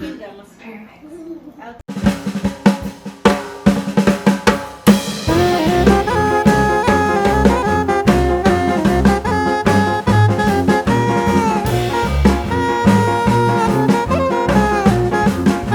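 Music with drums: after a quieter first two seconds, a drum kit comes in with sharp hits, and about five seconds in a full band joins with a steady bass line and a melody.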